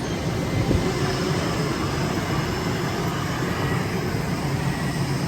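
Steady wind noise with a low rumble, with one light knock under a second in.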